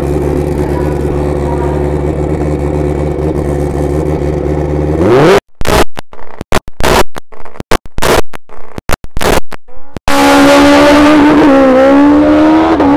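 Suzuki-based Pro Street drag bike engine held at steady high revs while staged, then revving up sharply about five seconds in as it launches. The sound cuts in and out repeatedly for several seconds. Then the engine is heard running hard down the track, its pitch climbing with a brief dip at a gear change.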